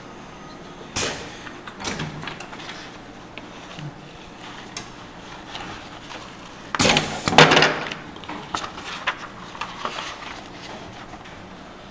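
A printed booklet being handled and its pages turned on a bench: papery rustles and a few knocks, the loudest burst of rustling and knocking a little past halfway.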